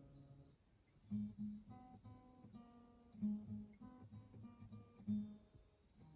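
Acoustic guitar played slowly, single plucked notes and light strums ringing out, at a fairly low level. The first second is quiet; louder notes land about a second in, near the middle and near the end.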